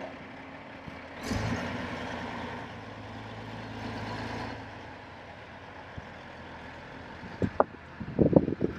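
Heavy diesel engine running steadily, swelling about a second in and easing off again a few seconds later, with a few sharp knocks near the end.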